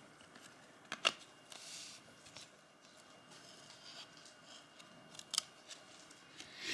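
Faint handling of old trading cards, stuck-together 1992-93 Topps Archives basketball cards being peeled apart and flicked: a few sharp clicks and a brief rustle.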